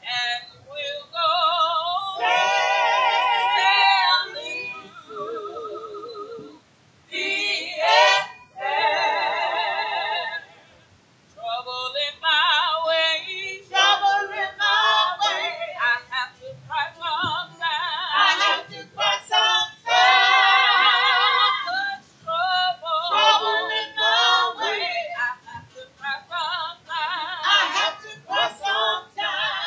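Small church choir singing, led by women's voices, with wavering sustained notes in phrases broken by short pauses.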